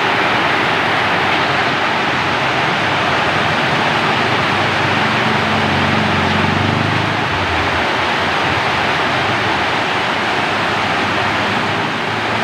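Heavy, steady rainfall, an even hiss of falling water. A low hum runs underneath it for a few seconds in the middle.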